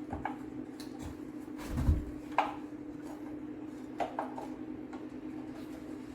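Bamboo knocking and rubbing as a bamboo cross-piece is worked through the hole in a bamboo leg: a few light knocks and a dull thump about two seconds in, over a steady low hum.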